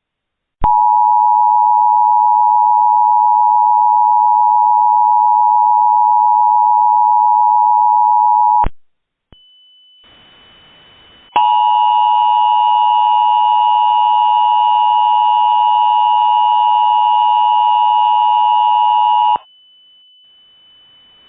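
Broadcast alert tones from a mock Emergency Alert System interruption. A loud, steady, mid-pitched tone holds for about eight seconds and cuts off. After a moment of faint hum and a thin high whine, a second eight-second tone sounds, harsher and distorted, then cuts off, leaving the hum and whine.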